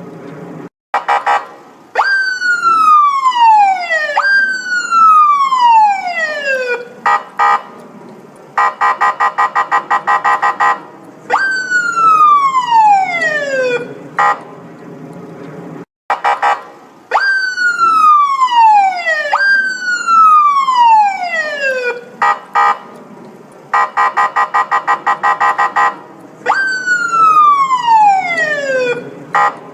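Police siren: a series of wails that each start high and fall steeply in pitch over two to three seconds, alternating with stretches of a fast, evenly pulsing tone. The sequence repeats about halfway through.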